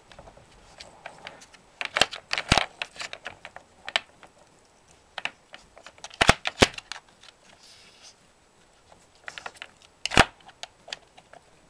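Wooden Nina Ottosson Dog Power puzzle board clattering as a hound's paws and nose push its sliding blocks and knock its wooden pegs: irregular sharp clacks and taps, with the loudest clusters about two seconds in, around six seconds and around ten seconds.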